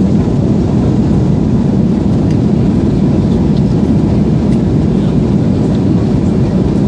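Steady low cabin noise of a jet airliner in flight, the engines and rushing air heard from inside the cabin at a window seat.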